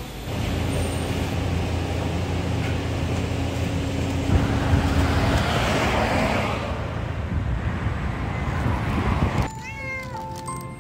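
Steady traffic and vehicle noise, then near the end a calico stray cat meowing a few times over a light tune.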